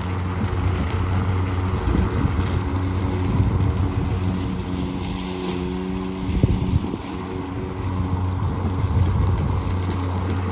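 Ryobi 20-inch 40-volt brushless battery lawn mower running steadily under cutting load, a low electric-motor hum with whirring overtones over the rush of the spinning blade. There is a brief clatter of knocks about six and a half seconds in.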